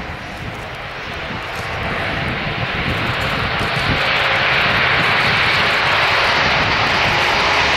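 Airbus A400M's four Europrop TP400 turboprop engines at takeoff power as the aircraft accelerates down the runway. The sound grows louder over the first few seconds, then holds steady.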